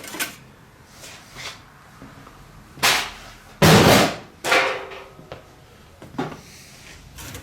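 Steel computer power supply units being cleared off a scale and dropped onto a pile: a string of metal knocks and clanks, with the loudest, longest clatter about four seconds in.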